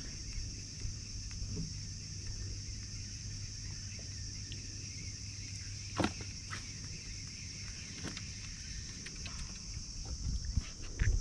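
A steady, high-pitched insect chorus drones without a break, over a low rumble. A single sharp knock comes about six seconds in, and a few fainter clicks follow near the end.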